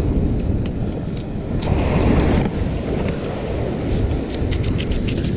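Wind rumbling on the microphone over surf noise, with scuffing and light metallic clicks from pliers working at the hook in a gummy shark's mouth, the clicks coming thickest near the end.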